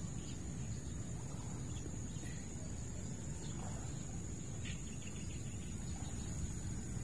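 Steady high-pitched insect trill, of crickets or similar, over a constant low rumble, with a few brief faint chirps of birds.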